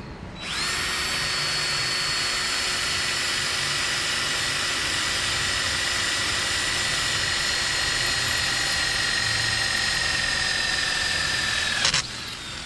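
Cordless drill running under load, boring a hole in the cart's metal tube: a steady whine that starts about half a second in, sags slightly in pitch as it works and cuts off suddenly near the end.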